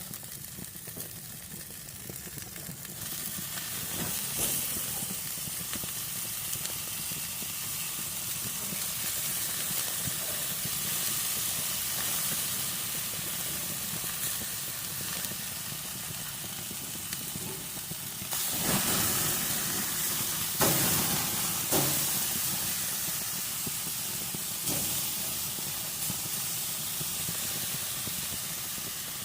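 Hotdogs sizzling as they fry in a pan: a steady hiss that grows louder about three seconds in, with a few brief louder spatters about two-thirds of the way through.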